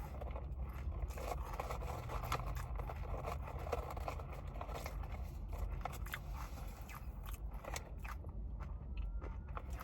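Someone eating noodles close to the microphone: chewing, with a steady run of small clicks and scrapes.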